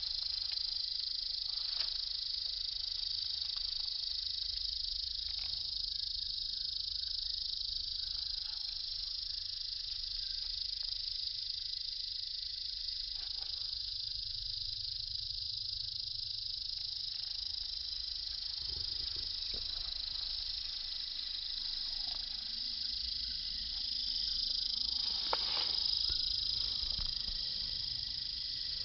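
Steady, high-pitched chirring of stridulating meadow insects, unbroken throughout, over a low rumble.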